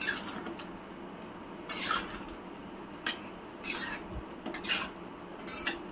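A spoon stirring paneer and onions through thick gravy in a pan, with about five short scrapes of the spoon against the pan over a steady hiss.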